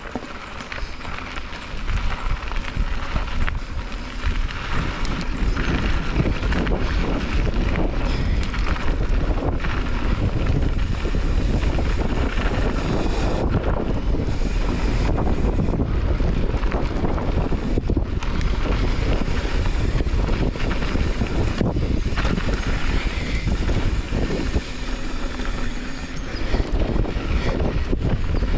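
Wind buffeting an action camera's microphone while riding a mountain bike fast down a dirt trail, mixed with the rumble of the knobby tyres on the dirt. It gets louder about two seconds in as the bike picks up speed.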